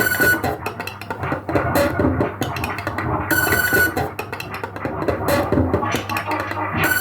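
Band music with guitar and bass guitar playing a repeating pattern, with a bright accent in the highs about every three and a half seconds.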